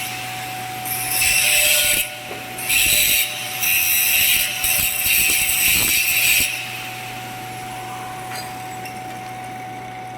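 Stick arc welding: the arc crackling and sizzling in several bursts over the first two-thirds, over a steady hum; after that only the hum is left.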